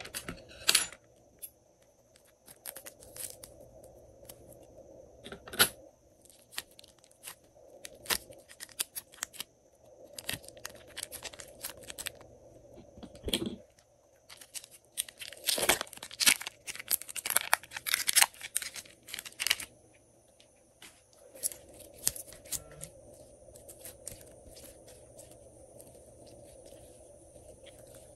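Hands working clear glitter slime and its plastic piping bag: crinkling plastic and sticky clicks and pops of slime, coming in clusters. It is busiest about halfway through and mostly quiet for the last few seconds.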